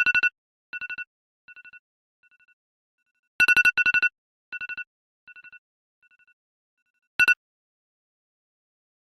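Telephone ring sound effect: a trilling two-tone ring sounding in pairs, each pair followed by fading echoes, with one more short ring about seven seconds in.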